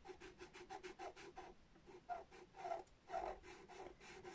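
Pastel pencil scratching on pastel paper in quick, short, repeated strokes, several a second, as short hatching strokes are laid down for a dog's fur. Faint.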